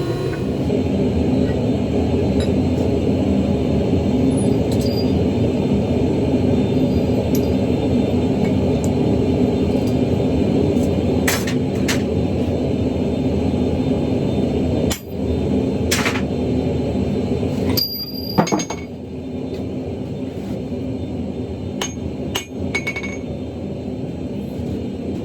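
A forge runs with a loud, steady roar and a low drone, while metal clinks sharply a few times, as tongs and the hot steel knock together. Several clinks come around the middle and again near the end, and the roar drops a little about two-thirds of the way in.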